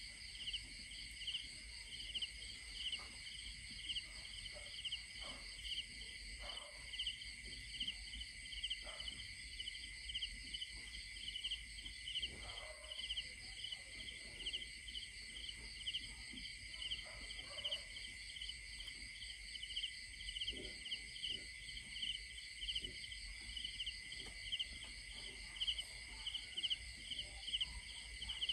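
Insects chirping steadily in an even, repeating pulse of about two to three chirps a second over a constant high hum, with faint scattered rustles and ticks now and then.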